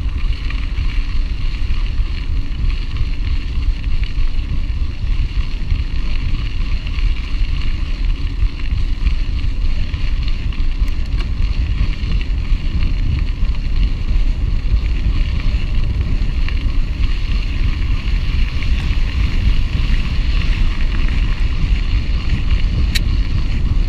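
Steady wind noise on the microphone of a mountain bike rider's camera, mixed with the road noise of the bike rolling over a gravel road.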